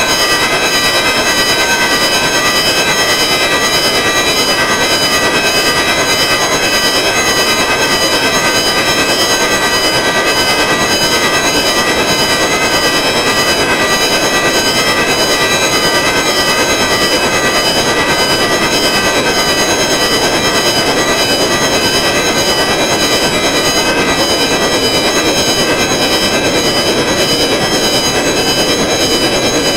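Electronic sequencer drone: a dense cluster of steady high tones, only partly in tune with one another, over a rushing noise band, with a fast flutter running through it and no change in level.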